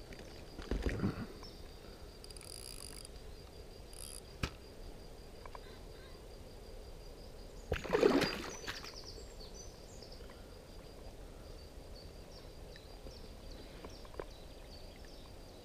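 Water splashing twice, briefly about a second in and more strongly about eight seconds in, as a hand-held common carp is dipped into the water beside a float tube. There is a single sharp click about four and a half seconds in, and quiet outdoor background between.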